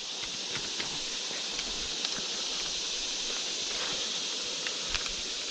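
Steady high insect buzz, like a cricket or cicada chorus, with a few faint scattered clicks and rustles.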